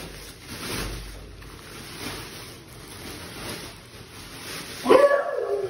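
Rustling and shuffling of a bean bag's white fabric cover being handled, then near the end a loud, high beagle-puppy whine that falls in pitch.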